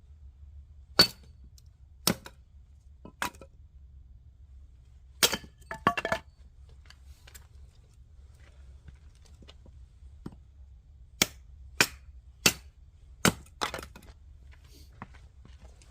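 Oak firewood being broken apart, a string of sharp cracks and knocks. There are about ten, in two groups roughly a second apart, with a pause of several seconds in the middle.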